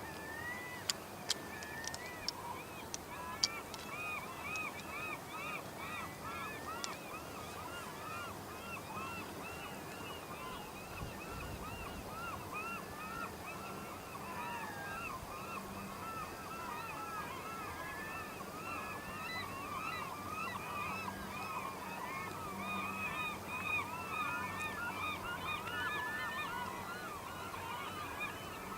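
A dense chorus of many short, repeated animal calls overlapping without a break, with a few sharp clicks in the first few seconds.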